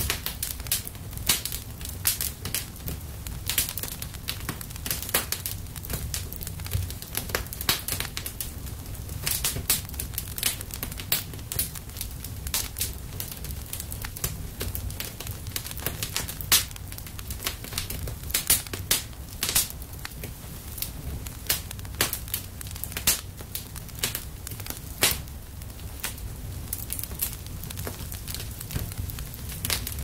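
Wood fire crackling: irregular sharp pops and snaps, several a second, over a low steady rumble.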